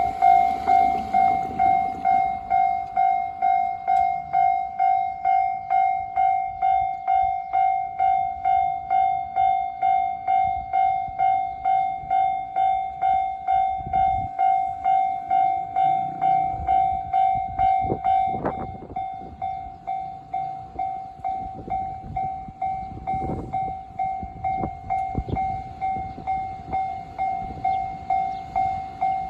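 Japanese level-crossing electronic warning bell ringing in a steady repeating pulse, about one and a half strikes a second. About 18 seconds in it becomes quieter and thinner. Low knocks and rumbles of a train at the crossing come through in the second half.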